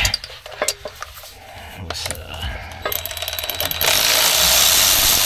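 A sharp knock, then a brief quick rattle about three seconds in, followed by a loud, steady hiss that starts about a second later and keeps going.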